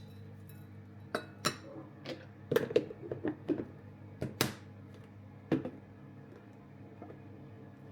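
A string of light knocks and clinks of small hard objects being handled, about a dozen over four seconds, over a steady low hum.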